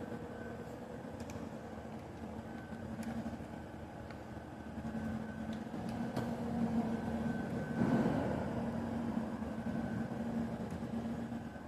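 Steady machinery hum with a low drone and a fainter high whine, scattered with light clicks; a louder rush of noise swells about eight seconds in.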